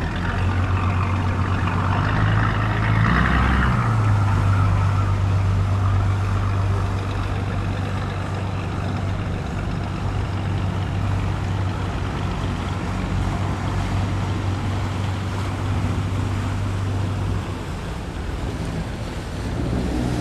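A large vehicle's engine running steadily with a low, even hum, over a wash of noise. A hiss sounds during the first few seconds, and the hum drops away near the end.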